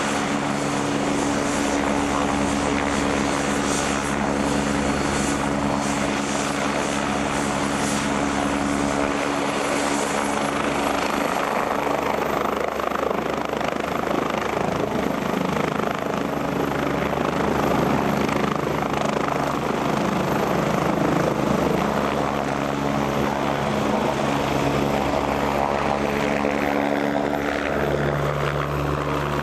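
Agusta A109 twin-turbine helicopter running with a steady rotor beat and a high turbine whine. About ten seconds in the whine rises in pitch as power comes up for lift-off into a hover, and it stays loud as the helicopter climbs away.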